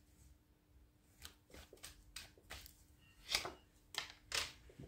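Tarot cards being handled over a tabletop spread: a scattering of faint, light clicks and taps, the loudest a little past three seconds in and again near the end.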